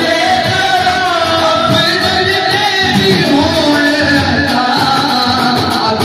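Naat, an Urdu devotional song, sung by a man's voice with light percussion keeping a steady beat.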